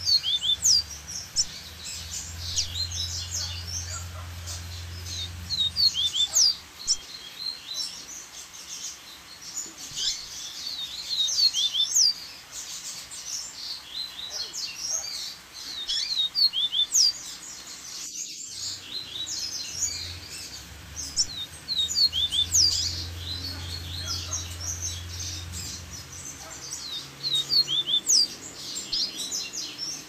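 Double-collared seedeater (coleiro) singing a fast, varied song of sharp chirps and short trills that follow one another with hardly a pause, over the steady rush of a waterfall.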